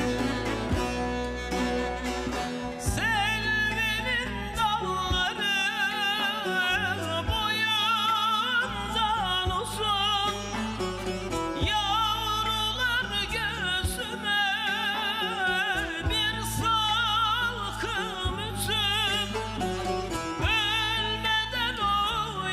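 Male voice singing a Turkish folk song in long, wavering, ornamented phrases over bağlama (long-necked saz) and other instruments. The first few seconds are instrumental; the voice comes in about three seconds in.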